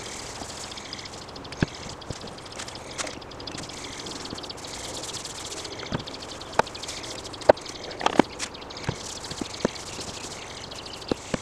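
Sharp wooden knocks and taps, a dozen or so scattered through, as a red-oak rocking-chair part is handled and hand-rubbed with wax on a wooden workbench. Underneath runs a steady outdoor background of fast chirping insects and birds.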